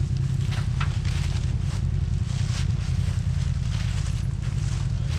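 Off-road vehicle engine running steadily with a low, even drone, with a few faint light hits or brushes over it.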